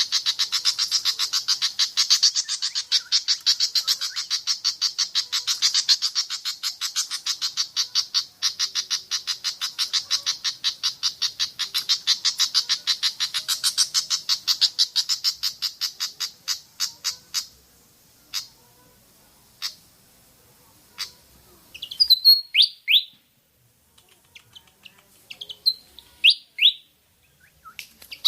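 Malaysian pied fantail lure recording. First a long, fast series of sharp ticking notes, about five a second, that slows and thins out to single clicks about two-thirds of the way through. Then come short squeaky whistled phrases of three or four quick notes, twice near the end.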